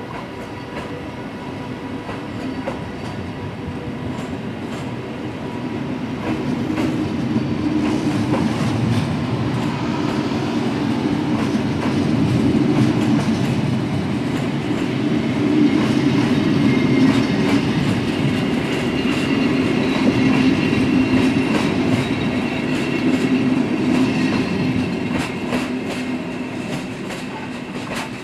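NSB passenger train coaches rolling past, their wheels clicking over rail joints above a steady rumble. It grows louder through the middle and eases off near the end as the last coach goes by.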